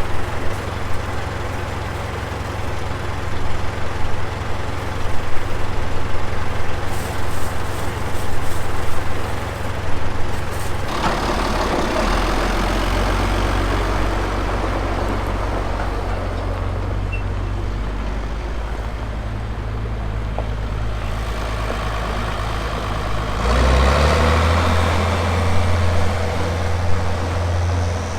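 Heavy diesel farm machinery engine running steadily. Its engine speed changes about eleven seconds in, and again near the end, where it grows louder.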